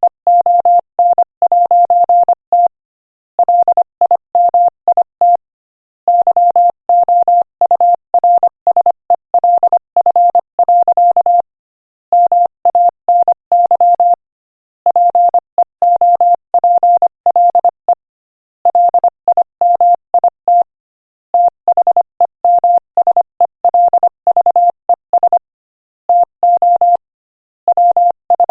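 Morse code sent at 25 words per minute: a single steady beep rapidly keyed on and off in dots and dashes. The code comes in quick runs, with pauses of about a second between words.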